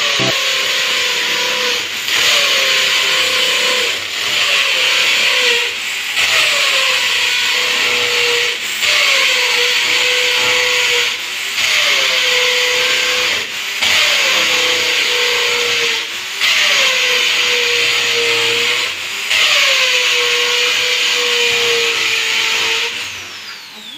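Corded electric drill boring into a cement wall in about nine runs of two to three seconds with brief breaks between. In each run the motor's pitch sags as the bit bites. It winds down near the end.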